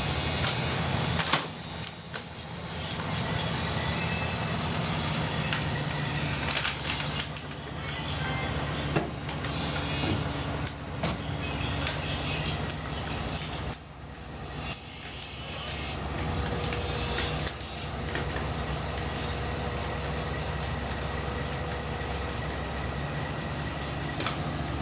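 Excavator's diesel engine running steadily, with scattered sharp knocks and clanks over it, the loudest about a second in.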